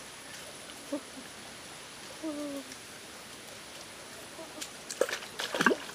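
Steady wash of a shallow forest stream with a few short, low hooting calls in the background. Near the end, a quick cluster of sharp knocks and clinks as a metal cooking pan is handled.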